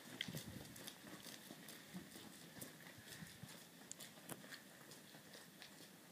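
Near silence, with a few faint scattered clicks and ticks.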